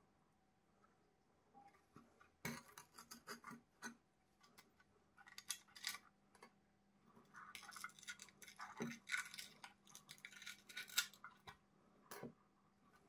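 Black metal headlight housing from an Indian Scout Bobber being handled and shifted on a stone worktop: scattered clicks, knocks and scraping, busiest in the second half and ending with a sharp click near the end.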